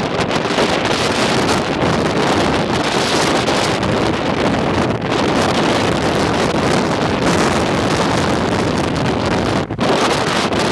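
Storm wind blowing hard across the microphone, a loud steady rushing that drops out briefly once near the end, mixed with heavy surf breaking.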